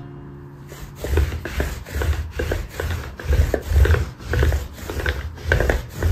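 Miniature dachshund breathing through its nose in short, loud puffs, about two a second, starting about a second in.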